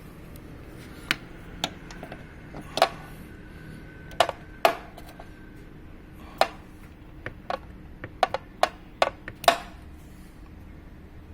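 Sharp snapping clicks from a Mercedes-Benz GLC300 (X253) car door as it is worked, about a dozen at uneven intervals, some in quick pairs. This is the typical door snapping noise of a loose door stopper (check strap) fixing screw.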